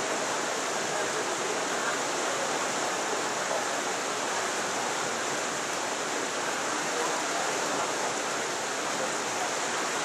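A steady, even rushing hiss with no rhythm or breaks.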